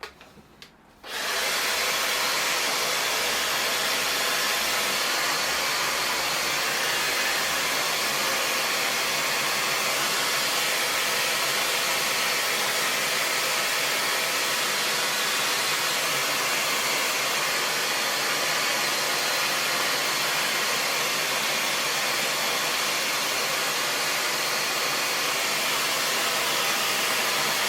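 Handheld hair dryer switched on about a second in, then running steadily, a continuous rush of air as it blows through damp hair.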